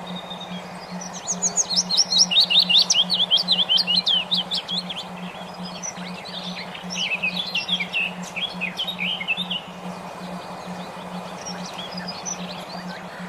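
A songbird singing two phrases of fast, high, upward-sweeping notes, the first and louder one about a second in and a second one past the middle. Under the song runs a steady, evenly pulsing low tone, the brainwave-stimulating tone of a bird-therapy audio track, with a faint hiss.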